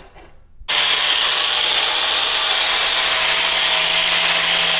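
Electric grinder grinding the edges of a notched steel tube, opening the 1¾-inch notch toward 2 inches to fit a monoball. It starts abruptly about a second in and runs steadily, with a constant whine over a rough grinding noise.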